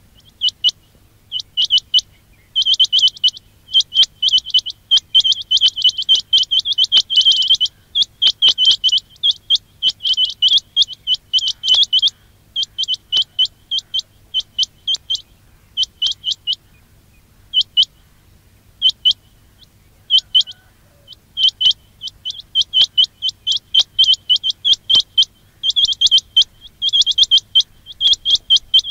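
Quail calling over and over: quick clusters of short, high chirping notes, broken by brief pauses.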